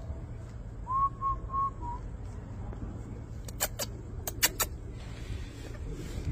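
A Japanese bantam chicken gives a short whistle-like call about a second in, a rising note that breaks into three quick notes. A few seconds later comes a quick run of about five sharp clicks, over a steady low rumble.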